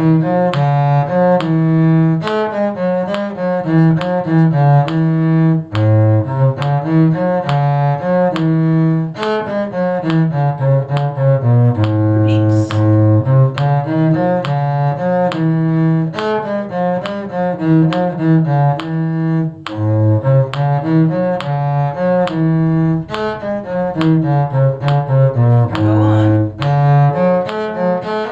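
A cello playing the melody part of a practice tune, a steady run of bowed notes without a break.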